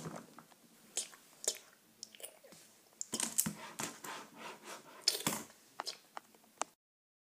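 A string of short, irregular crunching clicks and snips, a dozen or so, with the busiest cluster in the middle, then the sound cuts off to dead silence near the end.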